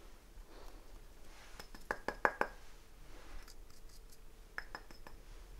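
Faint clinks and light taps of small ceramic spice bowls being handled and set down, with a quick cluster of several clicks about two seconds in and a few more later.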